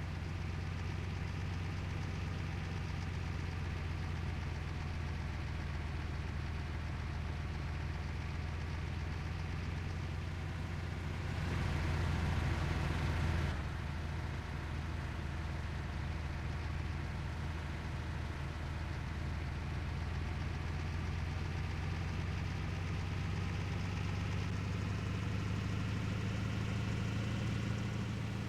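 Water tanker truck's diesel engine running steadily under way, with a louder hissing stretch of about two seconds roughly twelve seconds in, and the engine pitch rising slightly near the end.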